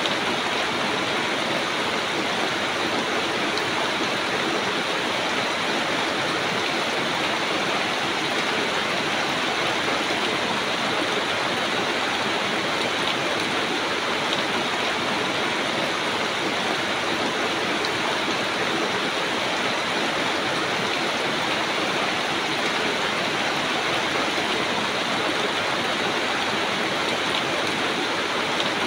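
Steady rain falling on broad banana leaves and the surrounding foliage, an even hiss that does not let up.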